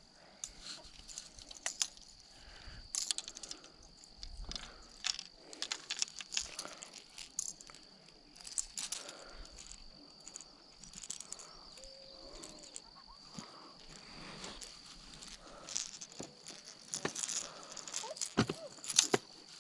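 Insects keep up a steady, high-pitched drone, while short clicks and knocks of handling come and go over it.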